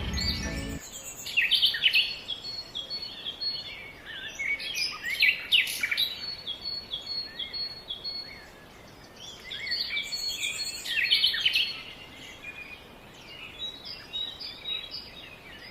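Birds chirping and calling in quick, high, repeated notes that come in clusters with short lulls between them.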